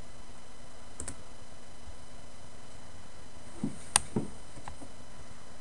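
A few clicks and taps on a laptop's controls over a steady hiss: one click about a second in, then a short cluster of duller knocks and a sharp click about four seconds in, the loudest sound here.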